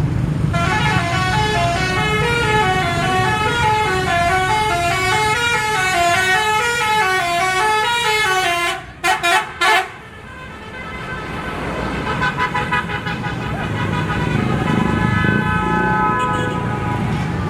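Bus 'telolet' musical air horn playing a stepping, up-and-down tune for about eight seconds, breaking off into three short blasts. A couple of seconds later a fainter run of horn tones follows.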